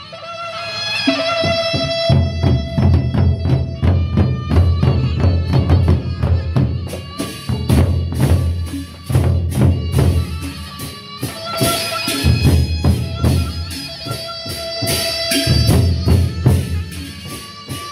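Sasak gendang beleq ensemble playing: large double-headed barrel drums beaten with sticks in a fast, dense rhythm, with ringing metal tones held over the drumming. The playing picks up again after a brief lull at the very start.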